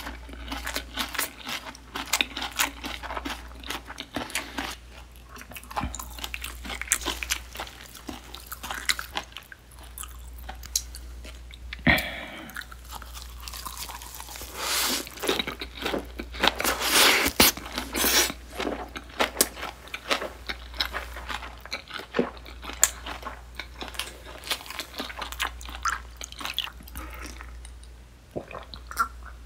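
Close-miked chewing and crunching of a napa cabbage leaf wrapped around raw butterfish sashimi: wet, crisp crackles throughout. The crunching is loudest and densest after a big bite about halfway through.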